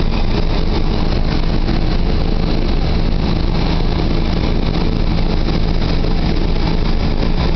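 Sandblasting cabinet in use: the abrasive blast gives a steady, loud hiss over a low, even motor hum.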